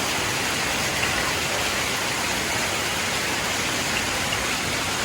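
Heavy rain pouring steadily, mixed with the rush of the river close by.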